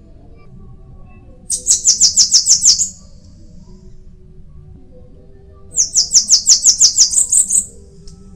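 Bananaquit (sibite) singing: two rapid runs of high, thin notes, each over a second long, the first about one and a half seconds in and the second starting a little before six seconds in.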